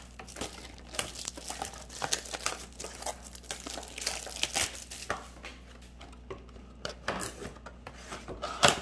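Packaging crinkling and tearing as a trading-card mini box is unwrapped and opened by hand: irregular rustles and crackles, thinning out in the last few seconds, with one sharp crackle near the end.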